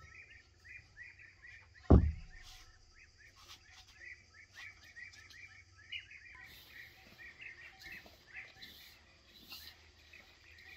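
Small birds chirping steadily in a rapid, continuous stream, with one sharp thump about two seconds in that is the loudest sound.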